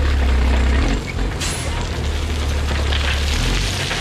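C8500 dump truck with its bed raised, engine running while a load of rock slides out and pours onto the ground in a steady rattling rush. The engine's low drone eases about a second in and picks up again near the end, and a single sharp knock comes about a second and a half in.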